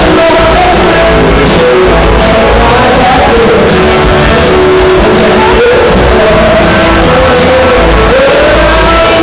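Live rock band playing loudly, with electric guitars, bass and drums under a singer's voice.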